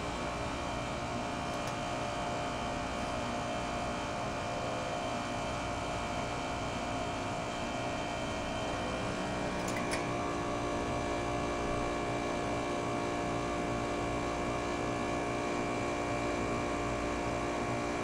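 R-22 heat pump outdoor unit's compressor running with a steady hum while the outdoor fan stays stopped, held off by a mild weather switch to keep head pressure down in heat mode. A brief click about ten seconds in.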